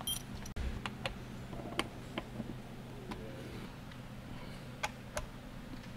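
Light clicks and taps of tools and parts being handled, about half a dozen spread out, over a steady low hum.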